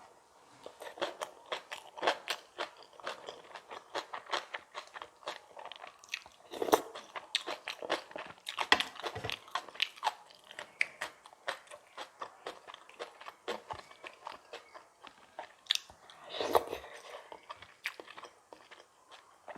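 Close-miked chewing and biting of a mouthful of kimchi bibimbap: crunching with a steady run of irregular clicking mouth sounds, louder for a moment about 7, 9 and 16 seconds in.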